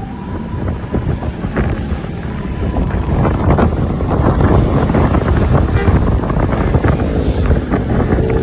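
Wind buffeting the microphone over road traffic noise. The noise grows louder a few seconds in as a vehicle approaches.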